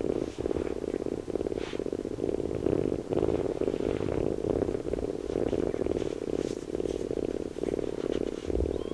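Kitten purring steadily, a fast, even rumble broken by short pauses every second or two.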